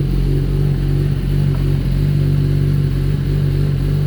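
Kawasaki ZX-10R's inline-four engine running steadily at idle, without revving, just after an oil change while it is checked for oil leaks.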